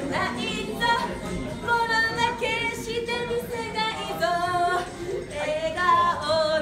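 A woman singing live into a handheld microphone, in a line of held, sustained notes that step from pitch to pitch.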